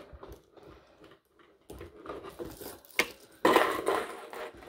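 A gold metal chain strap clinking, with small metal clicks from its clasp as it is hooked onto a handbag. About three and a half seconds in comes a louder stretch of handling noise.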